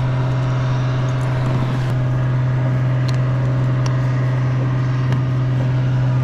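A steady low motor hum that does not change pitch or level, with a few faint clicks over it.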